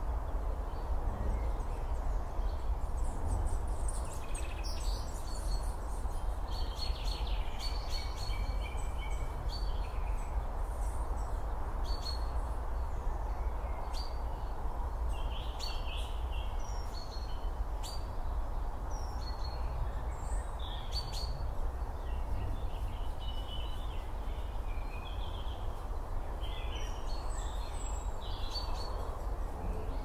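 Woodland ambience: birds calling and chirping on and off over a steady low background noise.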